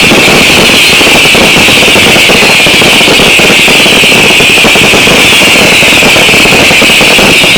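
Daylight fireworks going off non-stop, very loud. A dense crackle of many small reports runs under a shrill whistling that slowly wavers down and up in pitch, as from whistling pyrotechnic effects.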